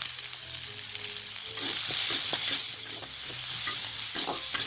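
Sliced onion and garlic sizzling in hot oil in a frying pan, being stirred, with clicks and scrapes of the utensil against the pan. The sizzle swells louder about two seconds in.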